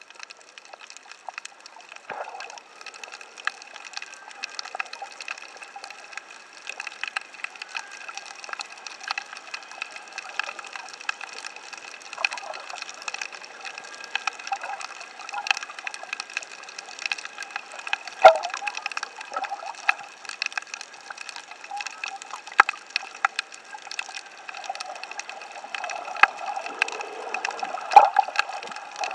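Underwater sound from a camera submerged on a coral reef: a steady wash of water with gurgling and many short, sharp clicks and crackles scattered throughout. A louder stretch of water noise comes near the end.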